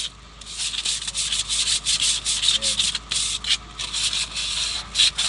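Hand sanding with 120-grit sandpaper inside a Daewoo engine's cylinder bore, in quick back-and-forth strokes, about four a second. It scours light rust off the bore's side so the new cylinder liner's O-ring is not torn on fitting.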